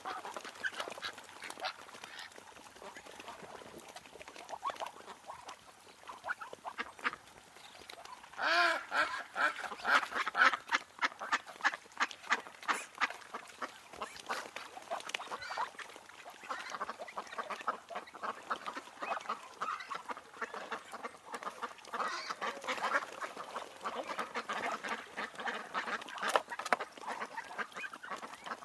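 Ducks quacking in a group, many short calls in quick succession. One louder, drawn-out call comes about a third of the way in, and the quacking grows dense and chattering in the second half.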